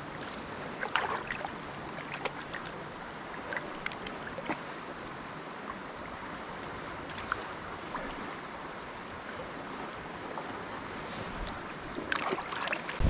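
River current rushing steadily, with scattered short clicks and small splashes and a busier stretch of splashing near the end.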